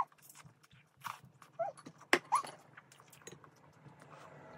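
Eating sounds: chopsticks clicking and chewing, broken by three short high-pitched whines, the last one rising in pitch.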